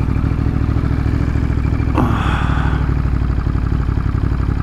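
Ducati Monster's L-twin engine running steadily while riding in traffic, heard from the rider's helmet camera. About two seconds in there is a short rush of noise and the engine note drops, then the engine settles into an even, rapid pulse.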